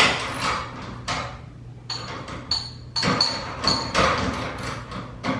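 A series of sharp metal knocks and clinks, about nine in all, several leaving a short high ring, as metal garage-door parts are handled and struck during a repair. A low steady hum runs underneath.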